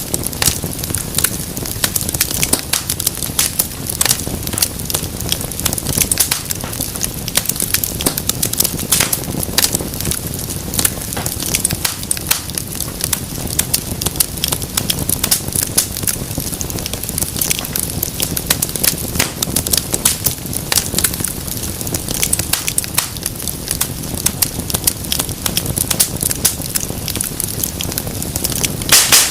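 Wood fire burning in a fireplace: a steady low rumble of flames with dense, irregular crackling and popping, and a cluster of louder pops near the end.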